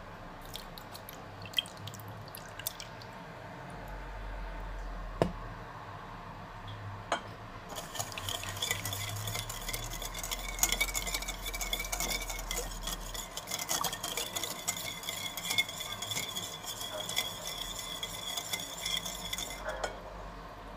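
Wire whisk beating eggs and sugar by hand in a bowl: a few scattered clinks and two sharp knocks in the first seven seconds, then about twelve seconds of fast, steady whisking, the metal tines rattling against the bowl, stopping abruptly near the end.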